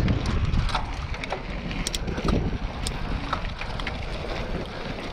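Wind buffeting the microphone and mountain bike tyres rolling over a gravel trail, with scattered clicks and rattles from stones and the bike.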